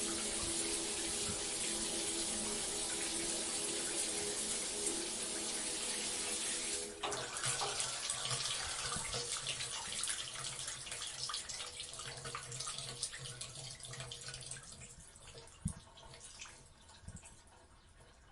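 Shower spray running steadily; about seven seconds in the sound changes abruptly and thins to trickling and dripping water that slowly fades away, with a couple of sharp drips or taps near the end.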